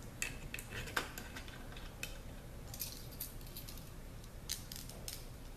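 Small steel bolts clinking and clicking as they are handled and dropped into their holes in a ZF 5HP24 transmission valve body, a dozen or so light, irregular metallic taps.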